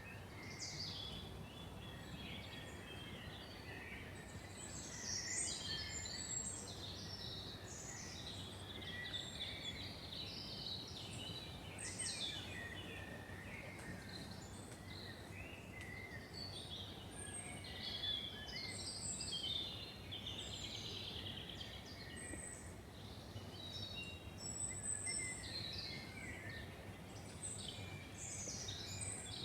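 Several songbirds singing and chirping at once, short overlapping calls and trills, over a steady low background rumble.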